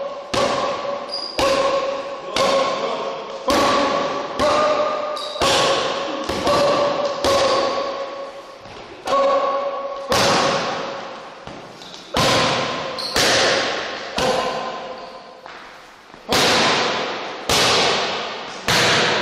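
Boxing gloves striking focus mitts in quick runs of punches, about two a second with short pauses between combinations. Each hit is a sharp smack that echoes in a large gym hall.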